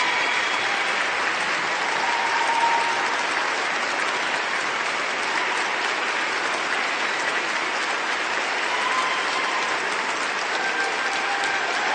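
Crowd applauding steadily, many hands clapping at once, with faint voices in the crowd.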